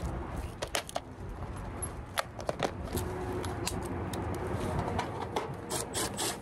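Screws rattling in a plastic tub as a few are picked out, then a cordless drill-driver briefly running as it drives a screw through metal wall flashing, ending in a few clicks of its clutch.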